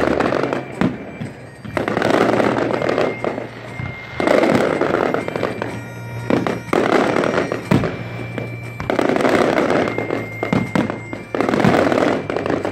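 Fireworks display: shells bursting in waves every couple of seconds, each a loud stretch of rumbling crackle about a second long, with sharp single bangs in between.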